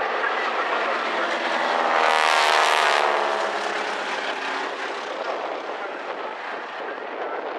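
Two Boeing Stearman biplanes' radial engines droning as they fly past overhead. The sound swells to its loudest about two to three seconds in, drops in pitch as they pass, then fades.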